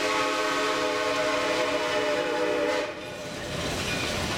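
Shay steam locomotive's whistle blowing one long, steady blast of several notes at once, which cuts off abruptly about three seconds in. The running noise of the train rolling along the track follows.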